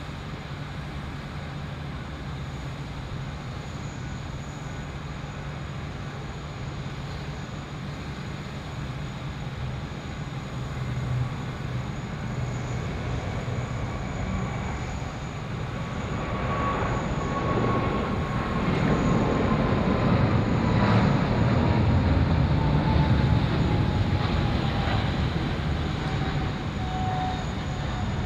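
Boeing 777-300ER's twin GE90-115B turbofans at takeoff thrust through the takeoff roll and climb-out. A steady jet rumble grows louder over the second half, with a thin whine that slowly falls in pitch as the aircraft passes.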